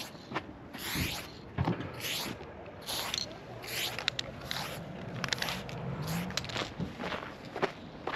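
Aerosol spray paint can fitted with a wide graffiti cap, fired in short hissing bursts about once a second, with small clicks and scuffs between the bursts.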